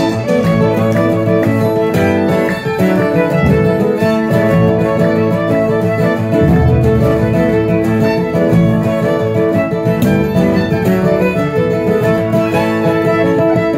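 Instrumental break in a traditional folk song: a fiddle plays the melody over acoustic guitar and a plucked upright bass.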